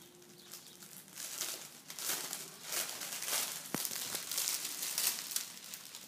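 Clear plastic packaging crinkling and rustling in irregular bursts as bagged scarves are handled and pulled apart, with one sharp click about four seconds in.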